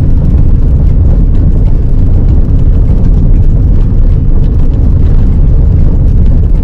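Car driving on a dirt road, heard from inside the cabin: a loud, steady rumble of tyres and suspension over the rough surface, with faint ticks and rattles scattered through it.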